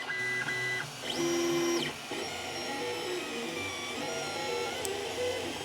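3D printer's stepper motors whining in steady tones that jump to new pitches every fraction of a second as the print head moves, laying down the first layers. The whine is loudest about one to two seconds in.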